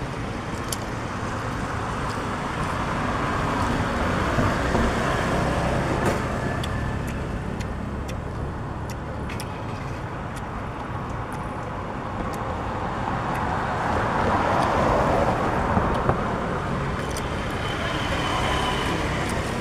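Road traffic noise, a steady rumble and hiss that swells as vehicles pass, about four seconds in and again near fifteen seconds.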